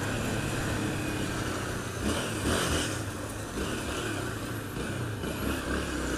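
Honda motorcycle engine running at low speed in slow traffic, under steady road and traffic noise, with a brief louder swell about two seconds in.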